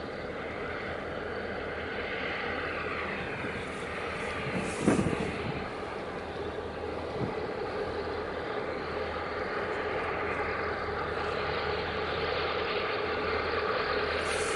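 Steady engine drone with a low hum and a held mid-pitched tone, swelling and easing twice, broken by one sharp knock about five seconds in and a fainter one a couple of seconds later.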